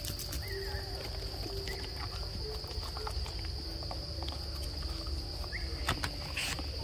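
A steady, high-pitched insect drone, with a few faint short low calls and a couple of sharp clicks near the end.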